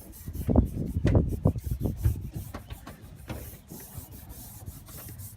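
A hand rubbing a vinyl decal flat against a vehicle's rear window glass: irregular rubbing strokes, most of them in the first two seconds and one more a little after three seconds.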